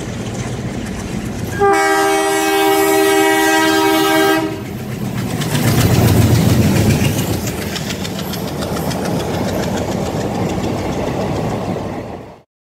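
Indian Railways diesel locomotive passing close with its coaches. Its horn sounds one long chord of several tones for about three seconds, then a heavy rumble peaks as the locomotive goes by, followed by steady wheel clatter over the rail joints. The sound cuts off suddenly near the end.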